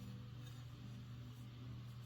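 Faint, steady low hum of room tone, with no distinct handling sounds.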